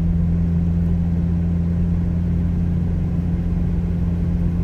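McLaren Artura's twin-turbo V6 running at a steady low speed, heard from inside the cabin as a steady low drone.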